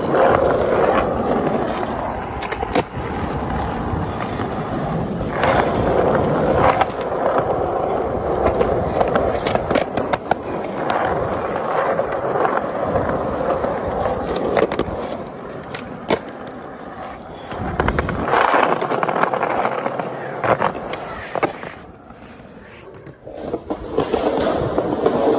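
Skateboard wheels rolling on concrete, with several sharp clacks of the board hitting the ground. The rolling dips briefly near the end before it picks up again.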